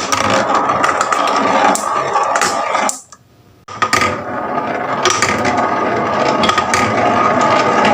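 Marbles rolling and clattering down a wooden HABA marble-run track: a continuous rattle full of sharp clicks, broken by a brief pause about three seconds in.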